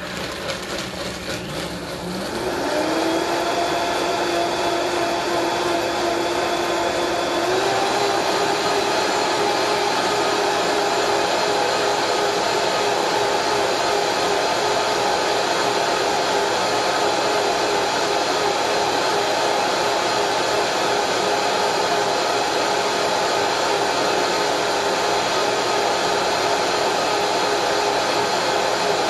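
Countertop blender blending cashews and water into cashew cream. The motor rises in pitch as it spins up over the first few seconds, steps higher again about seven seconds in, then runs steadily.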